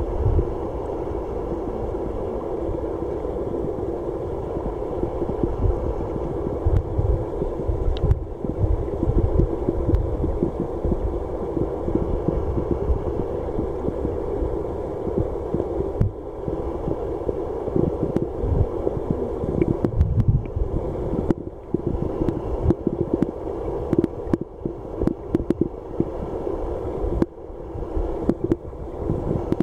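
Muffled underwater sound of a river current flowing over a pebble bed: a steady rushing hum with irregular low thuds.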